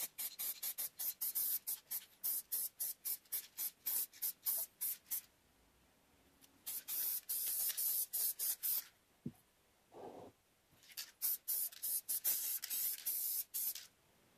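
Aerosol spray-paint can hissing in many quick short bursts, then in two longer sprays, coating a wooden stool seat. Between the longer sprays there is a short knock and a brief hum.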